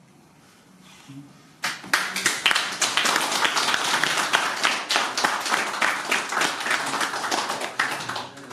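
A small audience applauding, starting about a second and a half in and dying away near the end.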